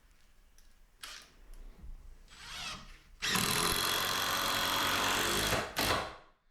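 Power drill driving a screw into timber: a short burst about two and a half seconds in, then a steady run of about two and a half seconds from just after three seconds in, ending with a brief final burst.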